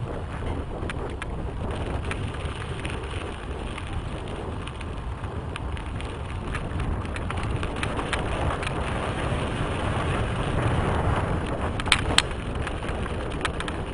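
Mountain bike ridden fast on a dirt trail: wind rushing over the microphone and knobby tyres rolling over dirt, with scattered clicks and rattles from the bike, and two sharp knocks close together near the end.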